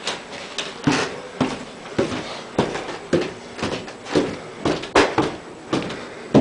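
Footsteps of a person walking down a flight of basement stairs and on across the floor, about two steps a second, in a small room.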